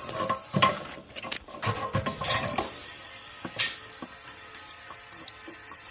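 Clicks and knocks of a hose coupler and flushing wand being handled over steady running water, the knocks bunched in the first half and fewer later.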